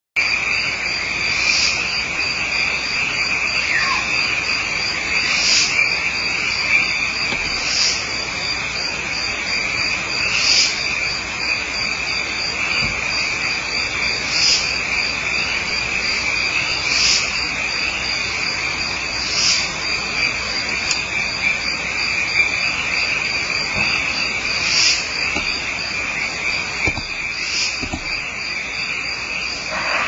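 Crickets trilling steadily at night, with a higher, brighter chirp about every two to three seconds over the continuous trill.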